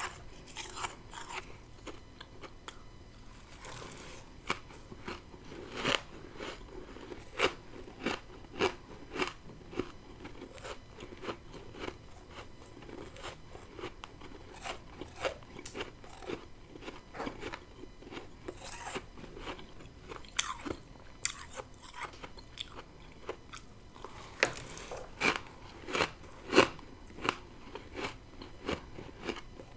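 Close-up bites and chewing of freezer frost (humidifier frost scraped from a deep freezer): repeated crisp crunches, with louder bites in clusters and softer chewing between.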